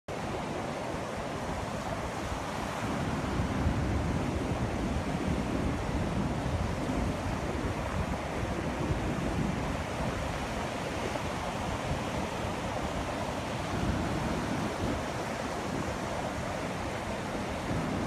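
Ocean surf breaking and washing up the beach, a steady rush of water, with some wind rumbling on the microphone.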